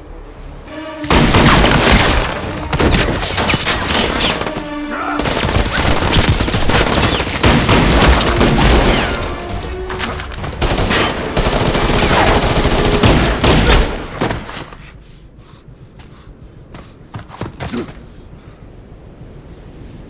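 Bursts of rapid automatic gunfire, many shots close together, starting about a second in and running with a brief lull near five seconds until about fourteen seconds, over music; after that it drops off to a few scattered shots.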